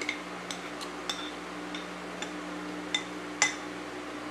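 Metal spoon clinking against a plate while eating: about eight light, irregular clinks, the sharpest about three and a half seconds in, over a steady low hum.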